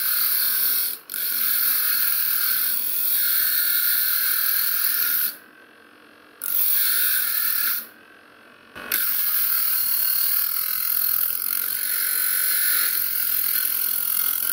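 Homemade 775 DC motor angle grinder's disc grinding the edge of a rusted steel knife blade to sharpen it: a loud, steady grinding hiss of metal on the disc. The grinding breaks off three times, briefly about a second in and then twice for about a second around the middle, as the blade is lifted off the disc.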